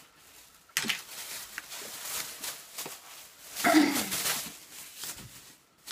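Plastic shopping bag rustling and crinkling as items are dug out of it, in uneven bursts, loudest a little under four seconds in.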